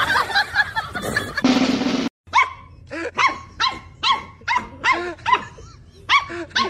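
A puppy barking in a fast series of short, high yaps, about two a second. These begin after a brief abrupt cut about two seconds in; before it, a busier, indistinct sound.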